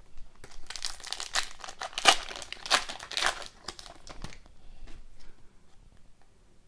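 A hockey card pack's wrapper being torn open and crinkled for several seconds, followed by fainter rustling as the cards are pulled out and handled.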